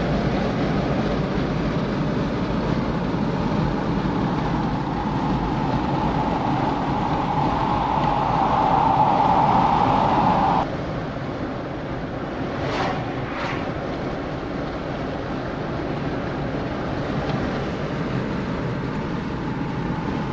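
Road and engine noise inside a car's cabin at highway speed, a steady rushing drone with a hum that swells and then cuts off abruptly about halfway through, giving way to a lower, even drone. Two short clicks come shortly after.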